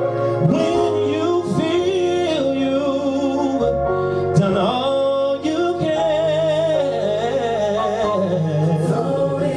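A man singing a slow gospel song solo, with long held, wavering notes and vibrato, over sustained instrumental chords and a bass line that shifts every few seconds.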